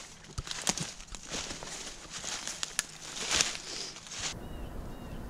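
Footsteps crunching and rustling through dry fallen leaves and brush, with sharp snaps of twigs and leaves; the crunching cuts off abruptly about four seconds in. After that comes a quiet outdoor background with two faint short chirps.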